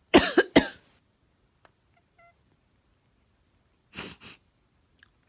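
A person sneezes loudly in three quick bursts close together. About two seconds later comes a faint, short pitched chirp from a cat, and near the end two soft sniffles.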